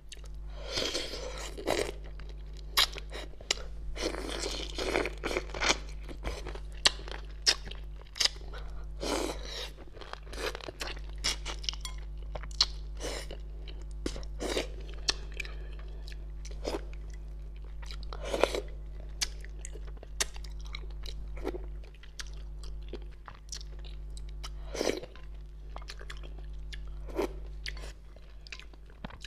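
Close-miked chewing of tender fish in a spicy sauce, with irregular wet mouth clicks and smacks. A steady low electrical hum runs underneath.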